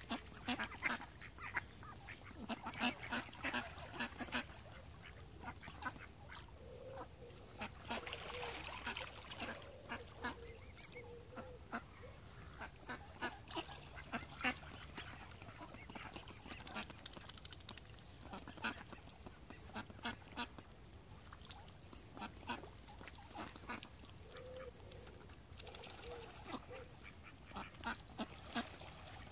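Ducks calling on a pond: scattered short calls throughout, with repeated short, high, thin peeps.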